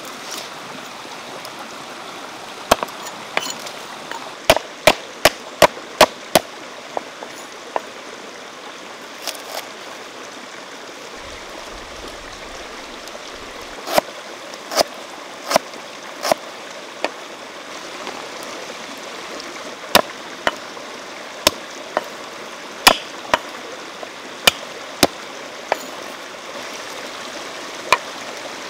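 Knife chopping lemongrass and a pale root on a round wooden chopping board: sharp knocks in runs of several quick strokes with pauses between, over the steady rush of a flowing stream.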